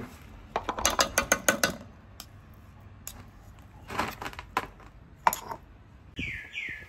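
Metal spoon and stone pestle scraping and tapping against a stainless steel pot as thick pounded paste is scraped off into it: a quick run of clicks about a second in, more around four seconds, and a sharp tap a little after five seconds. Two short high squeaks near the end.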